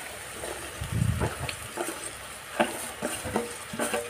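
Flattened rice (chura) being tipped from a bowl into a pan of peas, with scattered clicks and scrapes of a spoon against the bowl and pan and a soft thump about a second in, over a faint steady sizzle.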